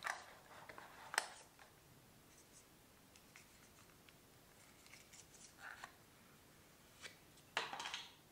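Faint handling sounds of smartphone packaging: clicks and scrapes of a cardboard box insert, then papery rustling as a paper band is slid off a coiled USB charging cable, the longest scraping rustle near the end.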